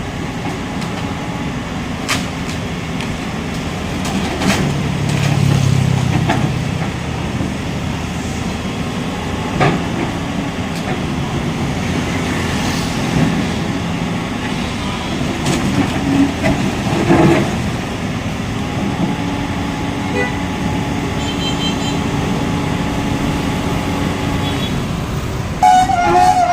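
Excavator diesel engine running steadily under load while it demolishes houses, with several sharp clanks and knocks of the bucket striking and breaking up the structures.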